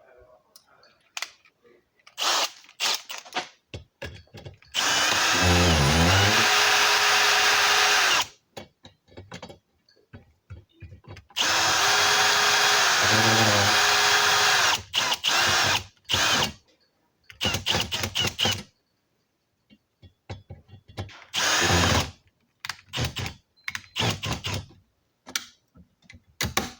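Power drill driving mounting screws: two long runs of about three seconds each, the motor whirring up in pitch and then holding speed, with short bursts of the trigger and clicks between them.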